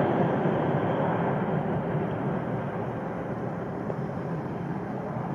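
The four GE CF6-80C2B1F turbofan engines of a Boeing 747-400 freighter climbing away after takeoff. It is a broad, steady rumble that slowly fades as the aircraft recedes.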